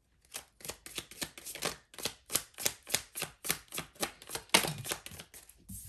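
Tarot deck being shuffled by hand: a quick run of card slaps, about three or four a second.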